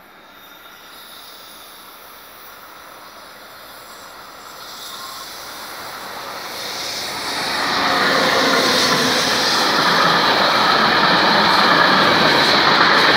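A freight train hauled by an ÖBB electric locomotive approaches and passes close by. The rumble and rattle of wheels on rails grows steadily, turns loud about eight seconds in as the locomotive draws level, and stays loud as the wagons roll past.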